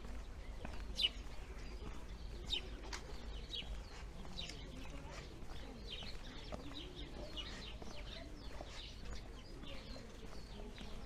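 Small birds chirping in many short, quick, high calls over a low, steady street hum, with a single sharp click about a second in.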